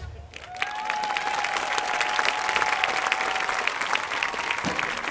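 Crowd applauding at the end of a marching band's number, with many sharp claps. One steady held tone sounds over it for about three seconds near the start.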